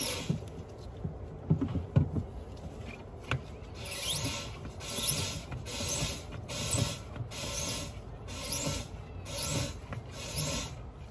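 Hand plunger pump drawing stale fuel out of a car's fuel tank through a hose, with a rasping swish on each stroke. A few knocks and rubs come first, then the strokes settle into a steady rhythm of about three every two seconds.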